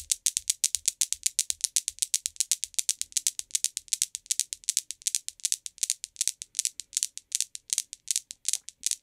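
Steel balls of a Newton's cradle clacking against each other in a rapid, uneven galloping rhythm, about seven sharp clicks a second.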